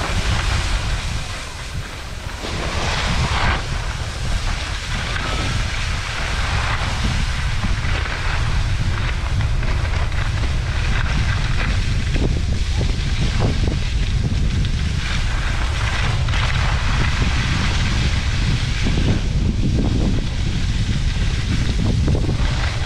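Wind buffeting the microphone of a downhill skier's camera, a heavy steady rumble, with skis hissing and scraping over groomed snow.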